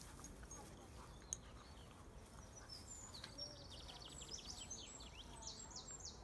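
A small songbird singing faintly over quiet outdoor background noise: a quick run of short high notes about three seconds in, then a few louder falling notes.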